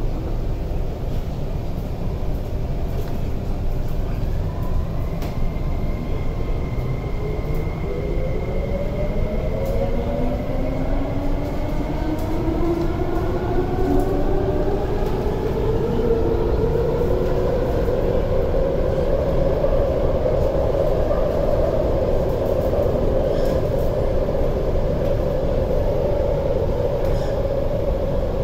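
Interior sound of an MTR SP1900 electric multiple unit pulling away: the traction motor and inverter whine rises in pitch in several parallel tones as the train accelerates, then levels off at a steady pitch about twenty seconds in, over a constant rumble of wheels and running gear.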